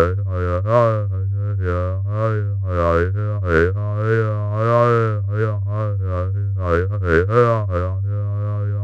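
Synthesized "drunk robot" sound effect: a robotic electronic voice-like tone over a steady low buzz, its pitch and vowel-like colour swooping up and down in slurred, irregular wobbles several times a second.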